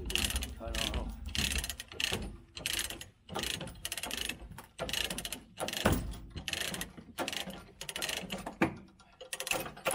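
Ratchet chain binder being cranked to tighten a tie-down chain: rhythmic strokes of ratchet-pawl clicking, about two a second.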